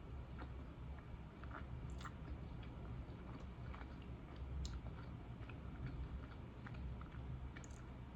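A person chewing and biting into pizza close to the microphone: irregular small wet clicks and crunches over a steady low hum.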